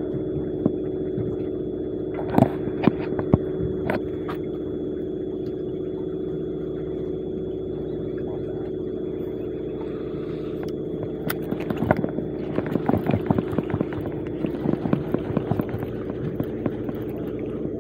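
Sportfishing boat's engine running with a steady hum. Close-up clicks and knocks from handling a fishing reel and rod come a few times early on and more often in the last several seconds.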